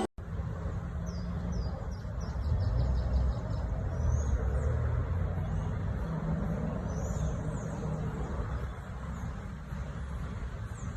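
Outdoor ambience: a steady low rumble, like distant engines or traffic, with small birds chirping high above it at intervals.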